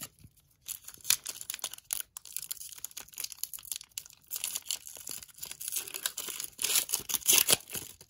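Foil wrapper of an Upper Deck Extended hockey card pack crinkling and tearing as it is opened by hand, an irregular run of crackles that grows louder near the end.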